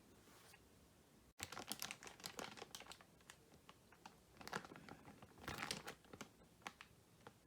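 Faint crinkling and rustling of the figure's box packaging and plastic being handled, with small irregular clicks, starting about a second and a half in.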